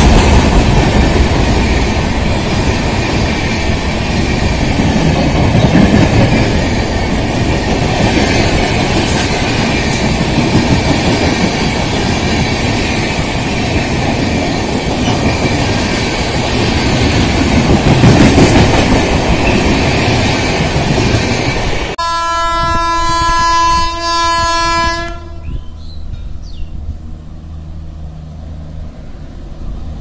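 Passenger coaches of an express train running past at speed, a loud steady rumble and rattle of wheels on rail for about twenty seconds. The sound then cuts to an electric locomotive's horn held on one note for about three seconds, followed by quieter background.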